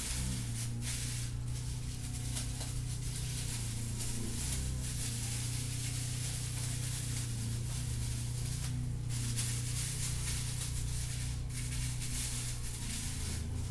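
Plastic shower cap crinkling and rustling as it is pulled and tucked over hair, in irregular bursts over a constant hiss, with a steady low hum underneath.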